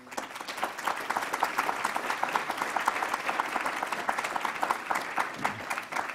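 An audience applauding: many hands clapping together, steady throughout.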